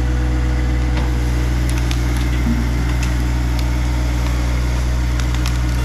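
John Deere 1025R subcompact tractor's three-cylinder diesel engine running steadily, with a few light clicks.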